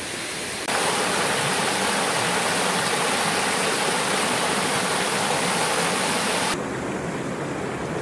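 Shallow stream water rushing and splashing over rocks in a steady rush. It turns abruptly louder and brighter about a second in, then drops back to a softer rush near the end.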